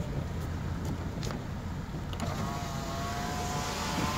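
Car cabin in heavy rain: steady low engine and road rumble under rain hiss, with a few sharp taps on the body. About two seconds in, an electric power-window motor whines for roughly two seconds as the side glass lowers, and the rain hiss grows louder.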